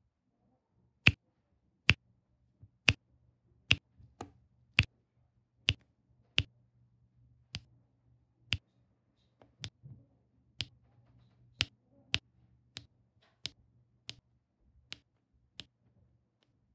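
Diamond painting drill pen and multi-placer pressing round drills onto the sticky canvas, a sharp click with each drill set down, about one a second and louder in the first half.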